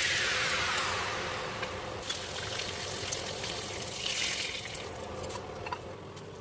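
Breaded chicken pieces sizzling in hot oil in a frying pan, with a few light clicks of a fork against the pan, the sizzle slowly getting quieter. A falling swish fades out in the first second.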